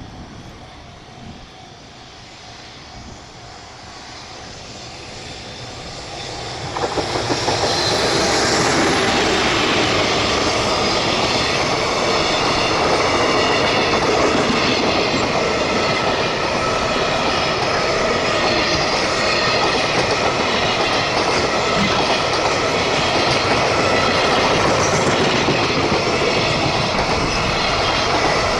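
A JR Freight train approaching and passing close by on the Tōkaidō Main Line: the rumble builds for several seconds, jumps sharply about seven seconds in as the train reaches the crossing, then the long line of wagons rolls past with a steady, loud noise of wheels on rails.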